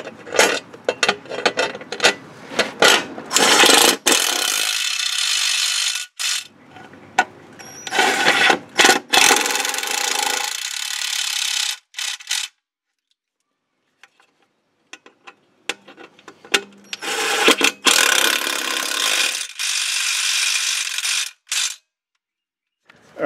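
Ratchet wrench clicking as the mounting bolts of an aluminum A-arm guard are tightened. There are separate clicks at first, then several runs of fast clicking a few seconds long with pauses between them.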